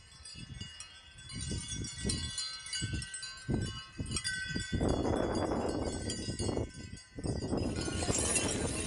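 Many high, overlapping chime-like ringing tones hold on steadily over uneven low gusts, likely wind on the microphone. Near the end a brighter, noisier sound takes over.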